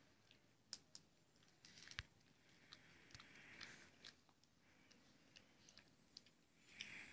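Faint, irregular wet smacking and clicking from a litter of puppies nursing at their mother dog, the mother nosing among them.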